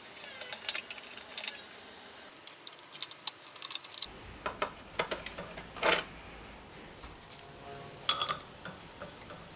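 Irregular small metallic clicks and scrapes of hand tools working on a mitre saw: a screwdriver backing out the blade-cover screws, then a tool fitted to the blade's arbor bolt.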